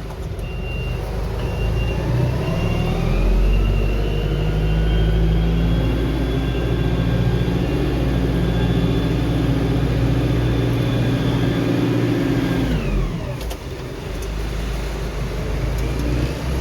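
Engine of heavy farm machinery working the silage field, revving up over the first few seconds, running steadily at high revs, then dropping back sharply about thirteen seconds in.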